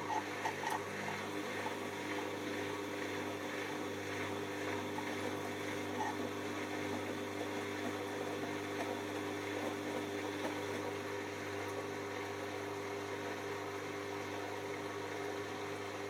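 Whirlpool AWO12963S front-loading washing machine in its wash phase, the drum turning a wet load of laundry, its motor running with a steady hum.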